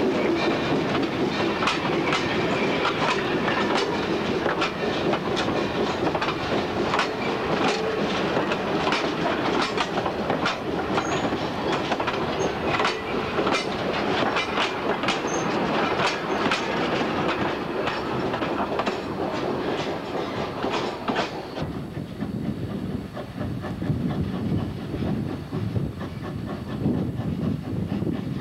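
Passenger coaches and a caboose rolling past at close range, their wheels clicking steadily over the rail joints over a continuous rumble of wheels on rail. About three-quarters of the way through the clicking stops, leaving a lower rumble.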